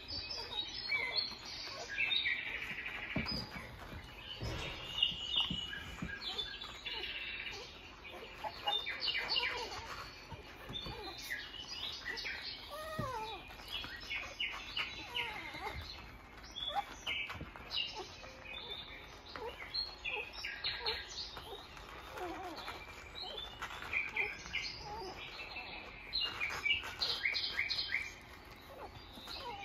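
A litter of young Australian Shepherd puppies squeaking while they nurse, many short high squeaks coming on and off throughout.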